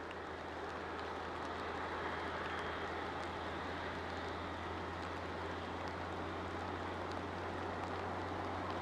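Distant Airbus A380 on final approach, its four Rolls-Royce Trent 900 jet engines a steady rumble that grows slowly louder as it nears.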